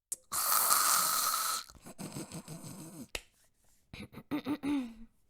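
A woman snorting hard through her nose to clear her sinuses: one loud snort lasting over a second, followed by a few quieter sounds from her voice.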